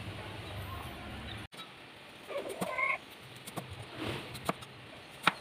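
A cleaver chopping carrot on a wooden chopping board: a few sharp knocks in the second half, the last the loudest. A chicken clucks briefly about halfway through.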